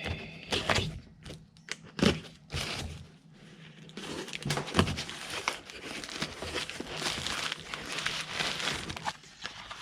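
A package being opened by hand: a few knocks and rips, then several seconds of steady crinkling and rustling of packaging.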